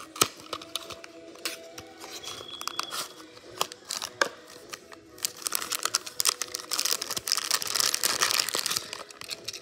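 A small cardboard toy box being opened with clicks and rustles, then a thin clear plastic bag round a die-cast toy car crinkling loudly and continuously from about five seconds in, dying away near the end.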